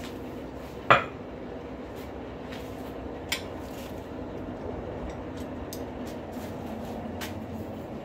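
Forge running with a steady hum, with one loud metal clank about a second in and a lighter metallic click a little after three seconds, as steel and tools are handled at the forge.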